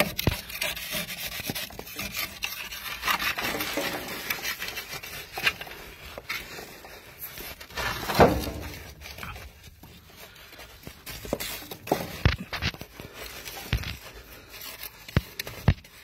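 Gritty scraping and rubbing of a metal multitool blade working in dirt and gravel against a rough ledge, with irregular knocks and clicks throughout.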